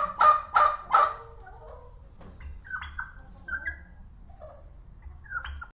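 Guinea fowl calling: four loud, harsh calls in quick succession in the first second, then fainter, shorter calls and chatter, over a low background rumble.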